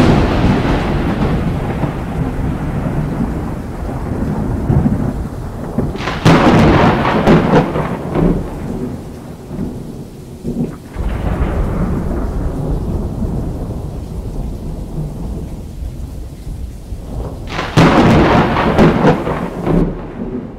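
Thunder during a storm: a sharp clap at the start, another about six seconds in, a weaker one a little before midway, and a last loud one near the end. Each clap rolls into a long rumble that slowly fades.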